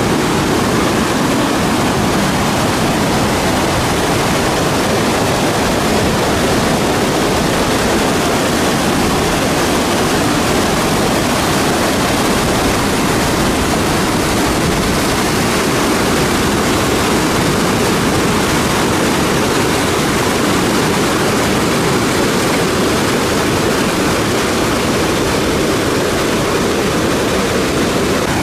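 Whitewater river rapids rushing loudly and steadily as the water pours over rock.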